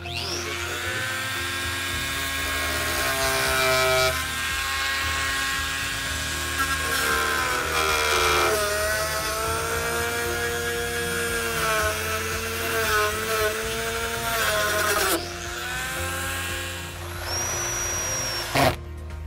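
Reciprocating saw cutting through black corrugated conduit: the motor whine speeds up, dips and recovers as the blade works through, then winds down. Near the end a cordless drill briefly runs to drive a clamp screw.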